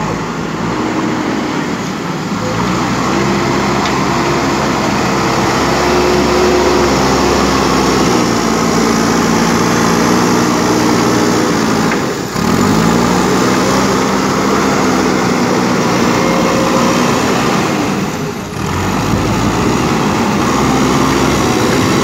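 JCB 3DX backhoe loader's four-cylinder diesel engine running under load as the front bucket works soil, its pitch rising and falling with the throttle. The sound breaks off abruptly twice, about twelve and eighteen seconds in.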